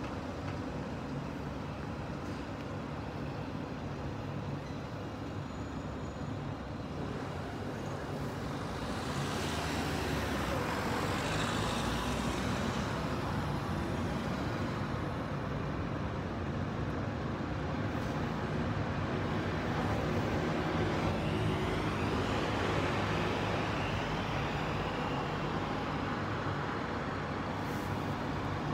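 City road traffic: a steady hum of engines with cars driving past, one passing close about ten seconds in and another a little after twenty seconds.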